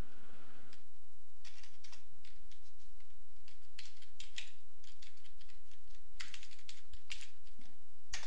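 Keystrokes on a computer keyboard, typed in irregular small clusters, with one louder keystroke near the end.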